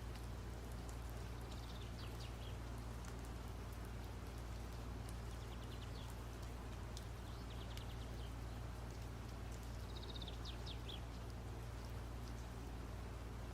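Paintbrush scratching on paper in several short runs of quick strokes, over a steady low electrical hum.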